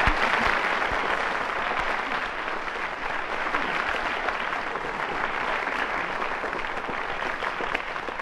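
Audience applauding, a dense patter of many hands clapping that slowly grows quieter.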